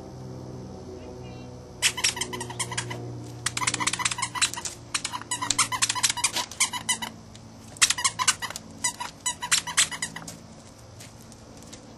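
A squeaky dog toy being chewed by puppies: rapid high squeaks in several quick runs, with short pauses between them.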